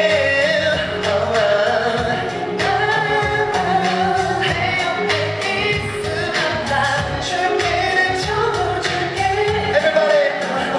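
A male pop singer singing live into a handheld microphone over pop backing music, heard through the hall's sound system.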